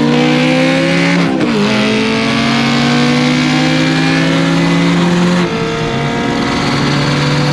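Honda S2000 engine running hard at high, fairly steady revs. The pitch dips and recovers about a second in and drops slightly about five and a half seconds in.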